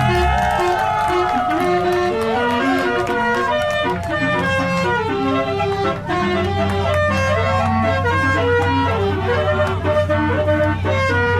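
Multi-tone telolet horn on a car playing a melody in held, stepping notes, with a few sliding notes near the start. A low steady hum joins underneath about six seconds in.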